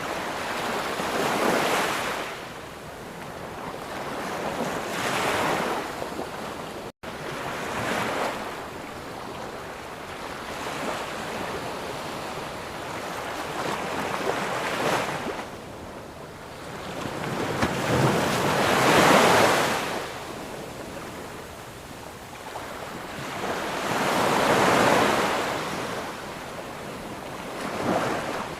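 Surf breaking on a sandy beach: waves surge and wash back every few seconds, and the biggest comes about two-thirds of the way in.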